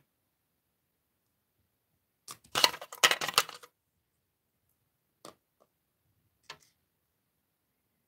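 Small plastic animal figurines clattering against each other for about a second and a half as a hand rummages through a pile of them, then two light single clicks as a figure is set down.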